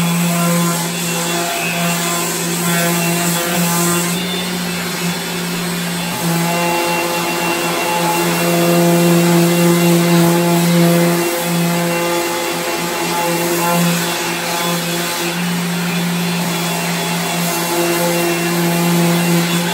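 Electric orbital sander running steadily with a strong hum, sanding the dark old finish off a maple cabinet door down to bare wood before painting. The hum dips briefly twice, about 6 and 11 seconds in.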